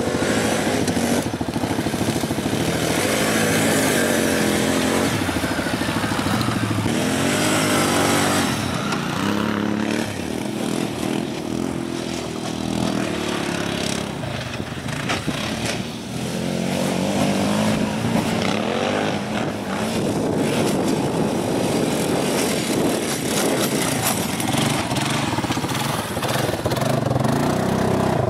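ATV engines revving up and down repeatedly as quads climb and ride a steep dirt and snow hill, the pitch rising and falling with each throttle burst.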